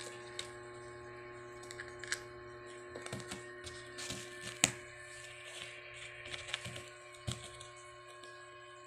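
Light clicks and taps of small plastic bottles being batted about and knocked over by a playing kitten, the sharpest about halfway through, over a steady electrical hum.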